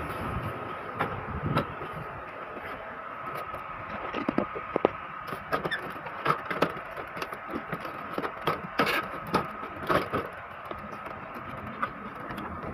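Scattered light plastic clicks and knocks from handling an opened inkjet printer's mechanism, over a steady high-pitched whine.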